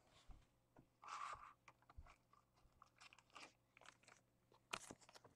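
Faint handling noise from trading cards being moved by hand: soft scattered clicks, a short rustle about a second in, and a few sharper clicks near the end.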